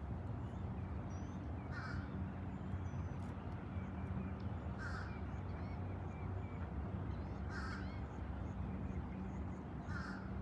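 A bird calling four times at even intervals of about three seconds, each call short and harsh. Fainter chirps of other birds sound between the calls.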